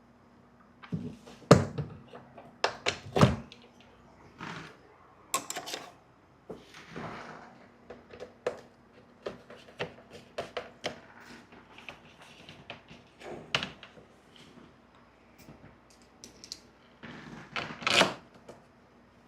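Irregular knocks, taps and clicks of parts and tools being handled during a stereo install on a personal watercraft. Sharp thunks come about a second and a half in and again near three seconds, there is a cluster of clicks near the end, and short scraping or rustling sounds fall in between.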